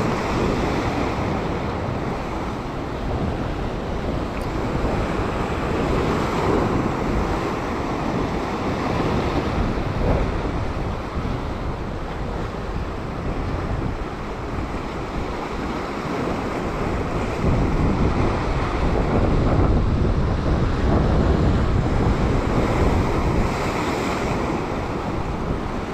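Sea surf washing and breaking over coastal rocks, with wind buffeting the microphone; the wash swells and ebbs, louder for a few seconds about two-thirds of the way through.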